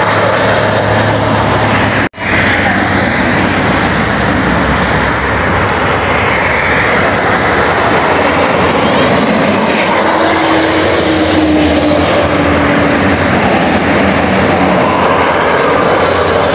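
Loud, steady road noise of buses and trucks passing at speed on a highway: tyre roar and diesel engines. The sound cuts out for an instant about two seconds in, then resumes.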